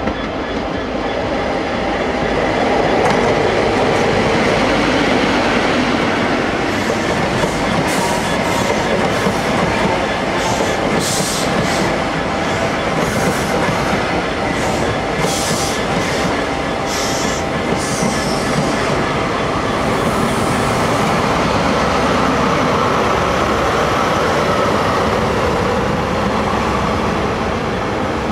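CrossCountry InterCity 125 (HST) passing close by, the MTU diesel engines of its class 43 power cars running. A run of sharp clicks and rattles from the wheels on the rails comes in the middle as the coaches go by.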